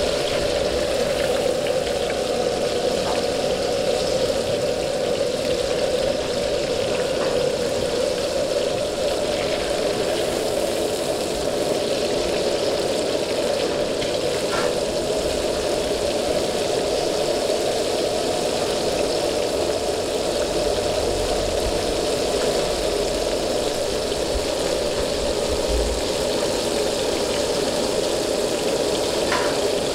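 Batter-coated pork pieces deep-frying in a wok of hot oil, a steady sizzle over the constant roar of a gas wok burner.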